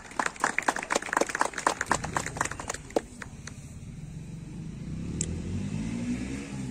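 A small crowd clapping for about three seconds as a prize is handed over, the claps thinning out. After that a low engine hum comes in, rising in pitch near the end.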